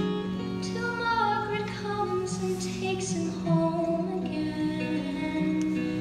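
Live acoustic guitar accompaniment with a woman singing, a slow folk song in a hall.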